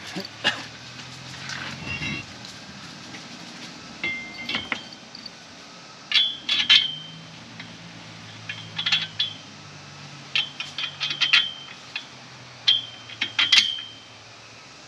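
Metal hardware and frame parts clinking and tapping together during bolt-up assembly: scattered clusters of sharp metallic clinks, each ringing briefly.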